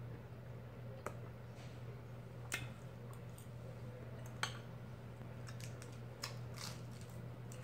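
A fork clicking against a plate of sautéed mushrooms a few sharp times, with soft chewing and mouth sounds over a steady low hum.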